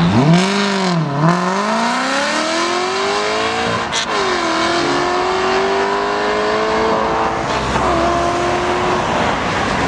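Aston Martin Vantage engine and exhaust accelerating hard away through the gears. The engine note climbs and drops at each upshift, about a second in, about four seconds in with a sharp crack, and again near seven and a half seconds, then fades into the distance.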